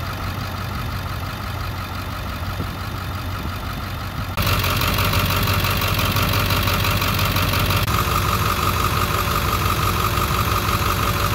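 School bus diesel engine idling steadily, just brought back to life on a new battery with a primed fuel system. It gets louder and brighter about four seconds in as the microphone comes close to the engine.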